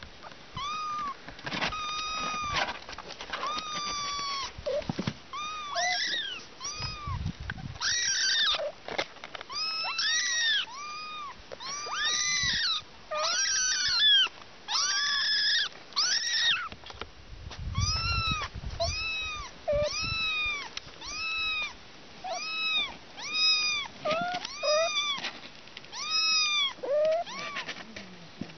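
Young kittens meowing over and over, short high-pitched calls that each rise and fall, about one or two a second.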